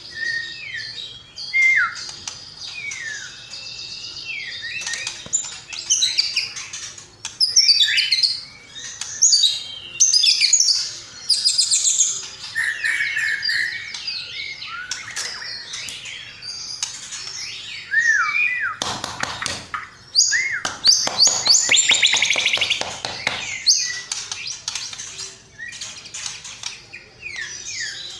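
Recorded songbird song mixed for a white-rumped shama training track: dense chirping, fast trills and short falling whistles, with louder harsh chattering stretches about a third of the way in and again past the middle.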